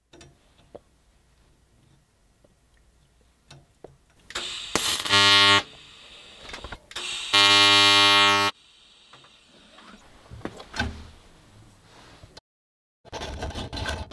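TIG welding arc buzzing in two steady bursts of about a second each, as the arc is struck, held briefly and broken while filler rod is fed into the joint.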